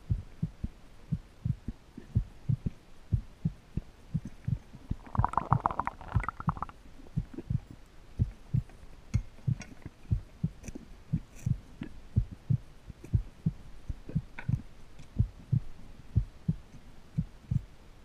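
Muffled underwater recording of a swimming diver: short low thumps about twice a second, with a brief louder buzz about five seconds in.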